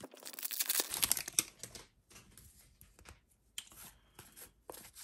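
A foil trading-card pack crinkling and tearing open for about two seconds, then light rustles and clicks of the cards being handled and flipped through.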